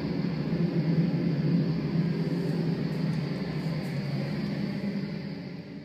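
Steady test noise from a sound insulation test loudspeaker, heard through the building structure: a constant rushing hiss, heaviest in the low-mid range, coming through a flanking path via the box below a window.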